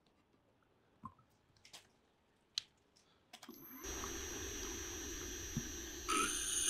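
A few light clicks, then a drill press motor starts about halfway through and runs steadily with a high whine. Near the end a twist drill bites into a steel plate, adding a louder cutting noise over the motor.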